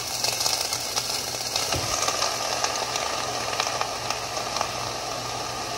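Frozen chicken chow mein hitting hot oil in a stainless steel pot: a steady hiss of sizzling, full of small crackling pops, easing slightly over the seconds as the food settles in.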